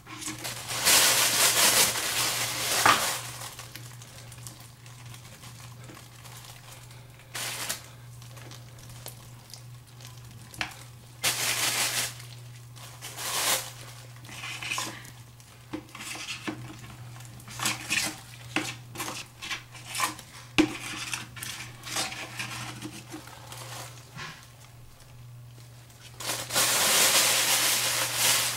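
A metal scraper scraping old wax-ring wax off a plastic toilet flange, cleaning it for a new wax ring. The strokes are repeated: longer scraping passes near the start and again near the end, with short quick strokes in between.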